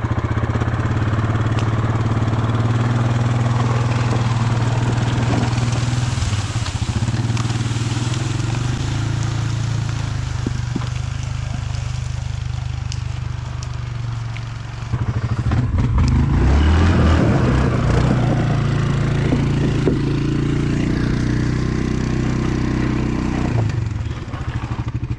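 A small engine running steadily, shifting in load and growing louder about fifteen seconds in, then cutting off at the very end.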